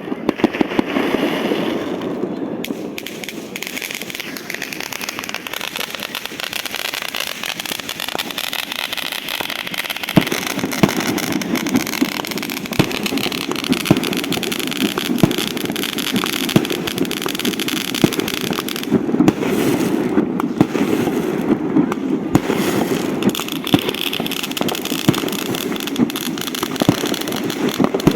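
Fireworks going off continuously: a dense, steady crackle of many pops and bangs, with some sharper reports standing out.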